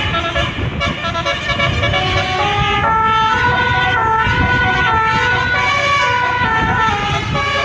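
Basuri melodic bus horn playing a tune: a string of held notes stepping up and down in pitch, over steady road and engine noise.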